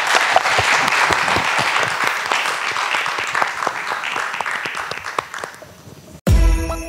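Audience of council members applauding, a dense patter of many hands that fades out, then cut off near the end by the start of loud music.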